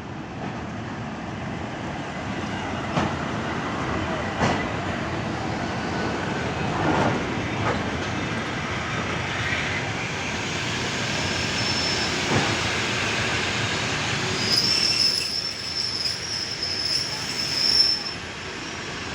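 Passenger train running on the rails: a steady rumble with several sharp wheel knocks, and a high-pitched wheel squeal in the last few seconds.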